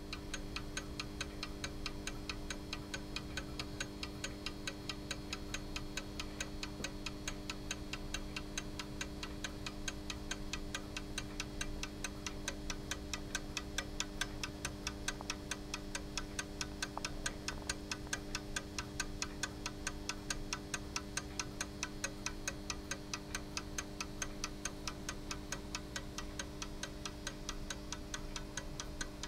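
Gustav Becker pendulum alarm clock's movement ticking, several quick, even beats a second from its escapement, with a steady low hum underneath.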